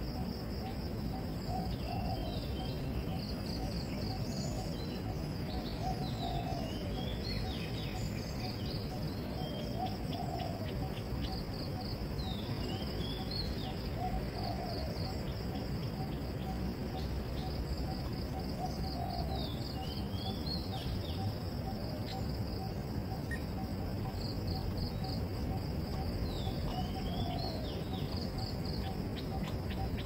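Insects chirring in a steady, fast-pulsing trill, with birds giving short gliding calls every few seconds over a low background rumble.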